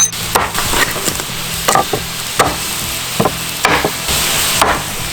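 Liquid sizzling steadily on a hot cast-iron cauldron lid over a wood fire, with about seven sharp knocks or clinks spread through it.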